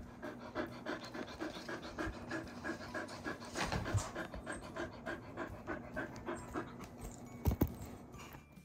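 A large dog panting steadily and quickly, about three pants a second. Two louder dull thumps come through, one about halfway and one near the end.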